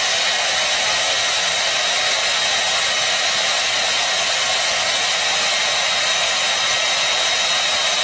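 Handheld electric hair dryer running, a steady rush of blown air with a faint high whine.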